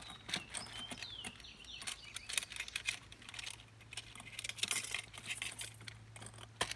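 Irregular small metal clicks and clinks as the clip retainer ring of a Pentair pool light is worked loose around the light fixture, over a steady low hum.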